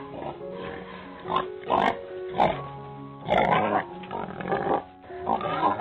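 About five short, rough animal calls over steady background music, the longest a little past halfway.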